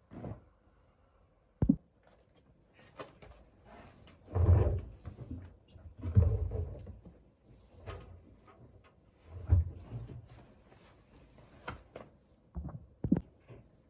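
Household handling noises: a string of knocks, clicks and thuds as things are moved and set down, the heaviest thuds about four and a half, six and nine and a half seconds in.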